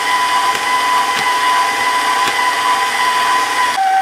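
Bowl-lift stand mixer running steadily with a high motor whine as its beater works stiff graham cracker dough. Near the end its pitch steps down as the speed is turned down.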